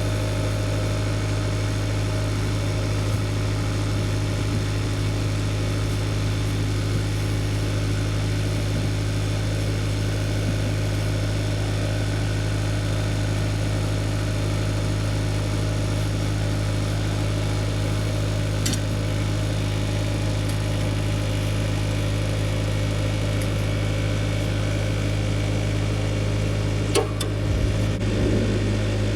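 Engine running at a steady speed with a constant deep hum, no revving; a couple of faint clicks near the end.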